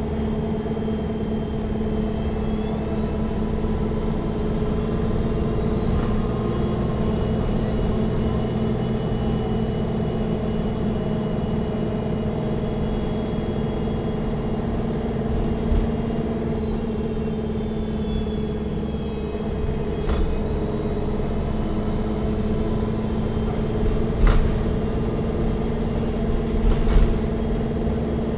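Cabin ride sound of a Neoplan N4516 Centroliner Evolution bus under way: steady engine and road rumble with a high whine that rises and then slowly falls, twice. A few sharp knocks and rattles come in the second half.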